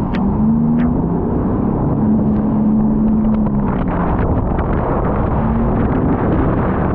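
Sea-Doo jet ski running at speed, a steady engine drone buried under rushing wind on the microphone and the hiss of water spray off the hull.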